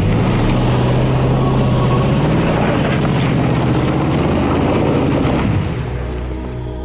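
Toyota Tundra pickup engine pulling hard under load through a muddy, rocky creek rut, with tyres churning over wet gravel. The engine note rises about two seconds in, then fades near the end as the truck passes.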